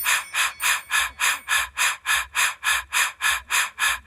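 A steady rhythmic hissing, short even pulses of noise about four a second, edited in with abrupt starts and stops.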